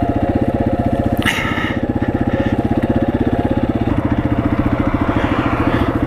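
Motorcycle engine idling steadily with an even, rapid pulse, and a brief scrape or rustle a little over a second in.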